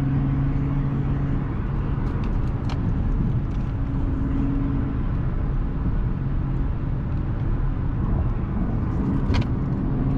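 Audi supercharged V6 with an AWE touring exhaust cruising, heard from inside the cabin: a steady engine drone over tyre and road rumble. The engine tone eases off about a second and a half in, leaving mostly road noise.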